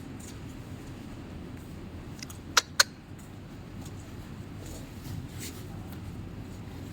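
Two sharp clicks or knocks in quick succession, about a fifth of a second apart, over a low steady background.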